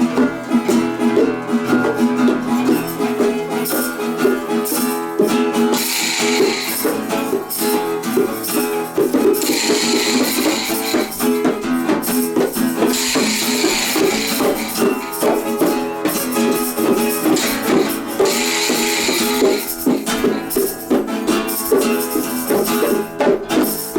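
Instrumental jam music: a busy, continuous run of pitched notes, with a rattling, shaker-like percussion joining in for stretches of a couple of seconds at a time.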